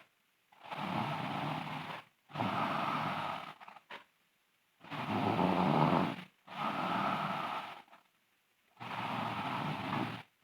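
A sleeping girl snoring loudly: noisy snores about a second and a half long that come in pairs, a pair roughly every four seconds, with silence between the pairs.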